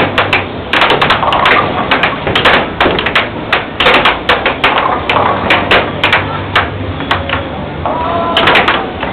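Air hockey puck and mallets clacking in a fast rally: rapid, irregular hard clicks as the puck is struck and bounces off the table's rails. A steady low hum runs underneath.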